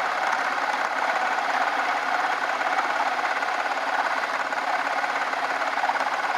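Craftsman 109 metal lathe running steadily through a cutting pass, with a fast, even mechanical rattle.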